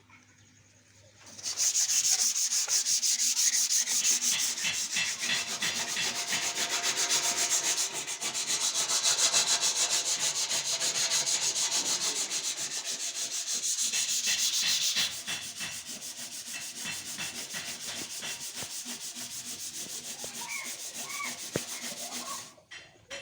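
Rapid, rasping grinding of a workshop power tool at work, starting about a second and a half in. It is loud for about thirteen seconds, runs more quietly after that, and stops shortly before the end.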